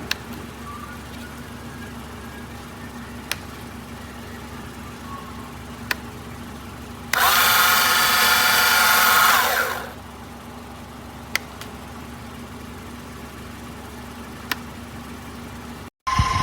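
A 12 V electric jack kit's motor runs loudly for close to three seconds, about seven seconds in, and winds down, against a steady low hum with a faint click every few seconds.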